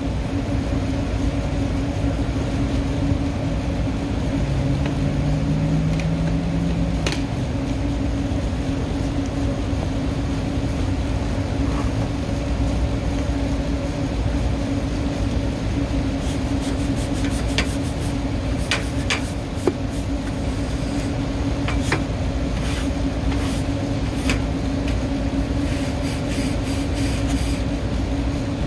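Steady low mechanical drone with a constant hum from rooftop machinery running nearby. Scattered light clicks and scrapes come in the second half.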